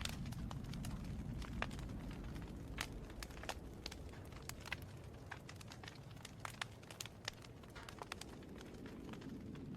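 Wood fire crackling: irregular sharp snaps and pops over a low, steady rumble of the flames.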